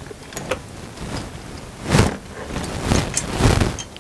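Small metal clicks and handling noise as nuts and lock washers are fitted onto the bolts of a swivel seat base. There are a few sharp ticks and a louder rustling knock about halfway through.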